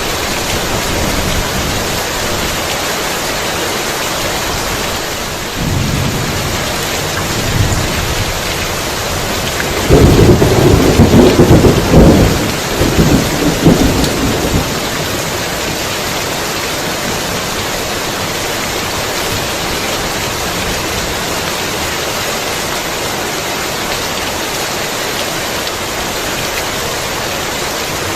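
Heavy rain falling steadily, with a roll of thunder: a low rumble begins about five seconds in and swells into a loud, crackling peal around ten seconds in, which dies back into the rain by about fifteen seconds.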